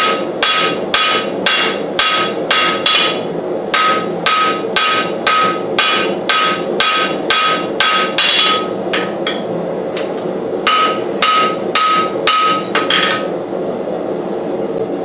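Hand hammer striking hot knife steel on an anvil, drawing out the blade's point. The blows come about three a second, each with a short metallic ring, in three runs with brief pauses between them, and stop a couple of seconds before the end. A steady rushing noise runs underneath.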